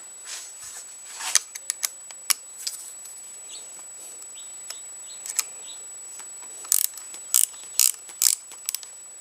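Ratcheting gear wrench clicking as it loosens a bolt: scattered light ticks, then a run of sharper clicks about two a second near the end.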